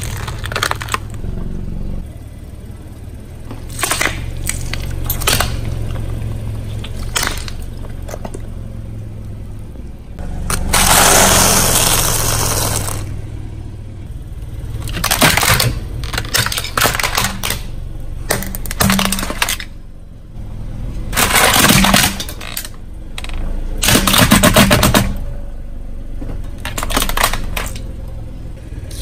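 A car tyre rolling over and crushing a series of objects: cracks and short crunches throughout, a long crunch about a third of the way in as food is flattened, and cracking plastic near the end as a plastic toy dinosaur breaks apart. A steady low hum runs underneath.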